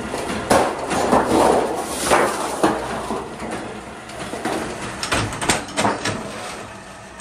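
Irregular knocks and clatter of hand work on metal parts. Sharp strikes come about half a second in and again around two seconds, and a quick run of knocks falls between five and six seconds.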